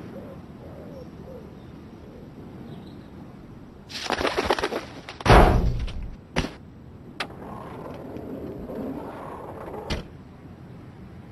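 A pigeon cooing softly, then a rapid clatter and a loud thump about five seconds in as the Ford SportKa's bonnet springs open. A sharp knock follows, and a second thump near the end as the bonnet slams shut.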